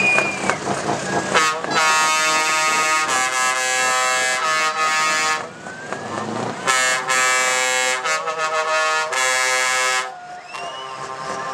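Truck air horn sounding two long blasts, each about three to four seconds, with a short break between them.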